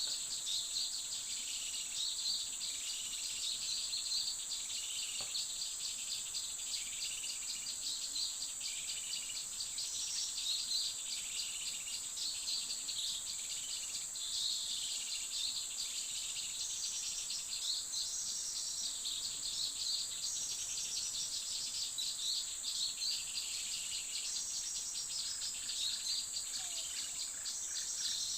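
Steady high-pitched insect drone of crickets or cicadas, with a bird repeating short chirping calls about once a second; a few lower notes join near the end.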